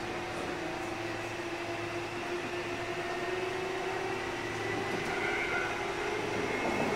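Running sound heard inside a Kintetsu 8000-series electric train carriage: a steady rumble and hum with a thin traction-motor and gear whine that slowly rises in pitch as the train picks up speed.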